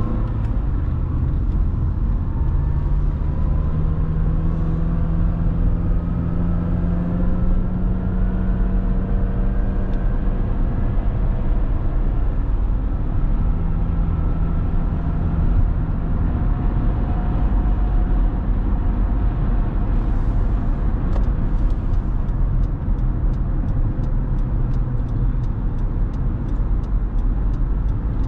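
Car engine and road rumble from inside the cabin while driving. The engine note climbs slowly over the first ten seconds, then settles. A light, regular ticking joins about twenty seconds in.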